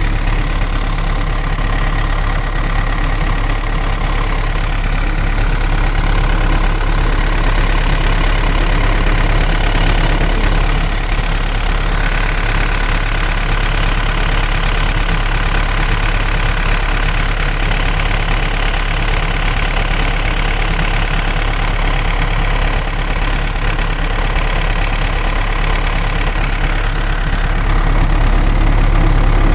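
Diesel engine of a Samsung excavator idling steadily, with a deep low hum underneath.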